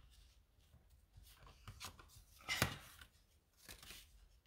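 Faint rustling and small taps of hands handling cardstock and twine on a craft table, with one sharper tap about two and a half seconds in.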